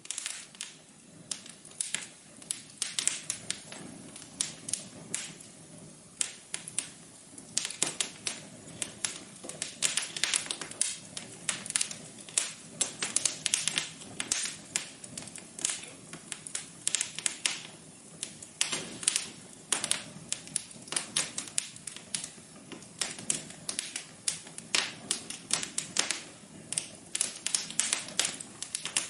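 Wood fire crackling in a fireplace: dense, irregular sharp pops and snaps over a soft steady hiss.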